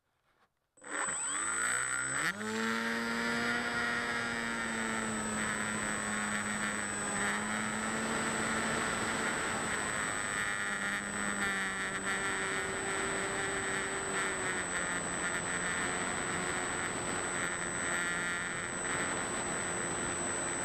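Motor and propeller of a Delta 600 RC model plane, heard from a camera mounted on the plane. The motor spins up with a quickly rising whine about a second in, then runs steadily in flight with small shifts in pitch as the throttle changes, over wind rush and a thin high whine.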